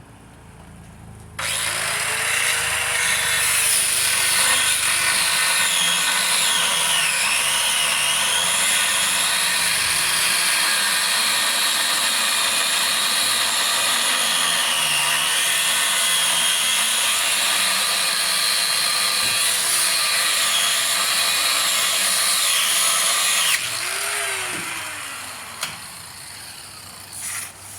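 A grinder with an abrasive cut-off wheel cuts through a van's steel frame rail. It starts about a second and a half in and runs steadily for about twenty seconds, its pitch dipping now and then as the wheel bites. It cuts off near the end and then winds down.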